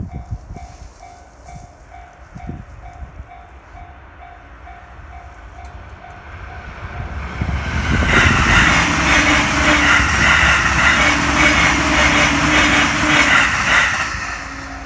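Japanese railway level-crossing alarm bell dinging steadily about twice a second, then a JR Joban Line train passes over the crossing for about six seconds, its wheels rumbling and clattering on the rails and drowning out the bell, fading near the end.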